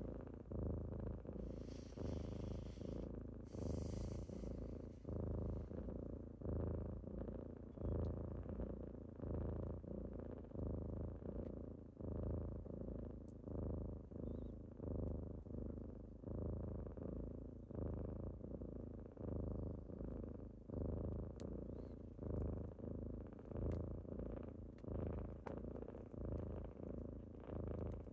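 Kittens purring close to the microphone, a steady low rumble that swells and fades about once a second with each breath. Two brief high squeaks come about two and four seconds in.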